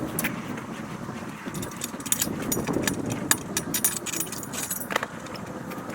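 Irregular clattering and knocking, many sharp clicks close together, busiest in the middle and second half.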